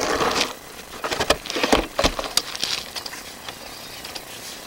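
A handful of sharp knocks and short clattering bursts, bunched in the first two and a half seconds, then only a faint steady background.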